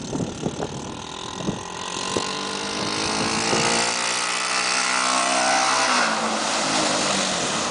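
Honda three-wheeler's single-cylinder engine revving, growing louder as it nears and shifting pitch, then splashing through shallow water with a hiss of spray in the later seconds.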